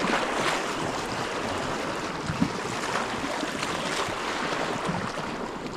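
Sea washing against a rocky shore: a steady rush of water with some wind on the microphone.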